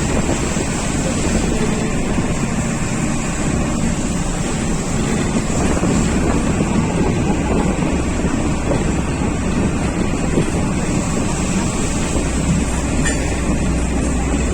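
Steady motor noise with wind on the microphone.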